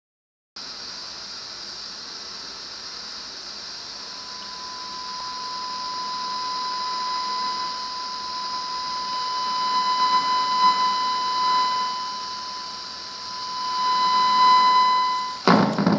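Steady whistling tone of about 1 kHz with fainter overtones over a hiss: the audio demodulated by an experimental 2 GHz RF circuit. It swells and fades as a bare copper wire is held on a chip capacitor, and is cut off near the end by a loud crackle.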